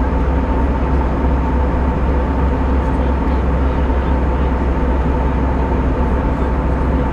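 Steady cabin noise of an Airbus A320 airliner: a constant deep rumble with a faint steady mid-pitched hum over it.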